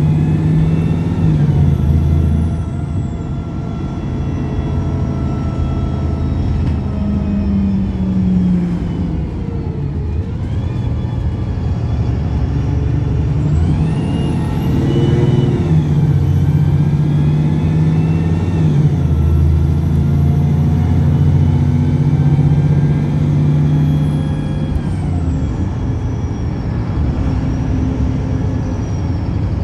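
Pulsar single-deck bus's diesel engine revving up and dropping back, with a high whine climbing, holding and falling twice. The uploader calls this bus's revving crazy, with an over-rev about ten seconds in.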